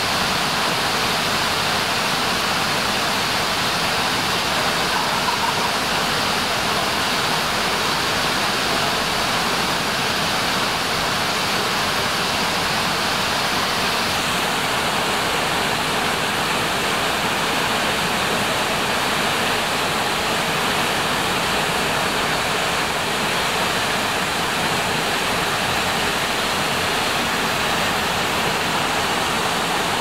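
Shiraito Falls: many thin waterfalls pouring down a cliff face into the stream below, making a steady rushing of water with no let-up. The hiss gets slightly brighter about halfway through.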